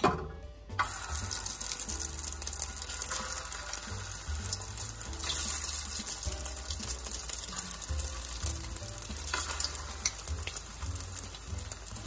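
Egg-coated zucchini slices sizzling in hot oil in a nonstick frying pan. The sizzle starts suddenly about a second in as the first slices go in, then runs on steadily, swelling as more slices are added.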